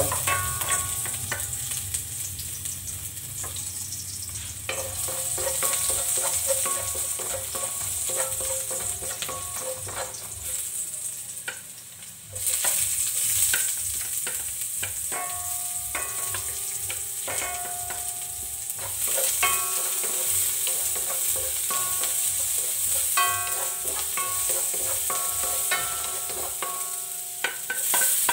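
Garlic, ginger, onion and tomato sautéing in hot oil in a stainless wok: a steady sizzle with scrapes and knocks as they are pushed off a plate and stirred with a wooden spatula. The sizzle flares louder about twelve seconds in as more ingredients hit the oil.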